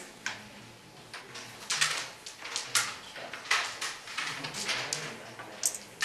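Carrom striker and carrom men sliding and tapping on a powdered carrom board: a series of short, irregular scrapes and clicks.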